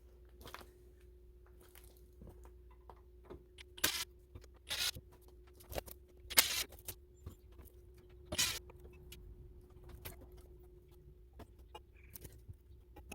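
Irregular metallic clinks and rattles of hand tools and small parts being handled, a few louder clanks among them, over a faint steady hum.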